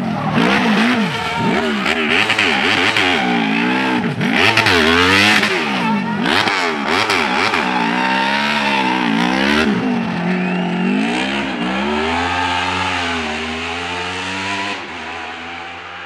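Hill-climb racing car engine at high revs, its pitch repeatedly climbing and dropping through gear changes and lifts for corners. It fades in the last couple of seconds as the car moves away.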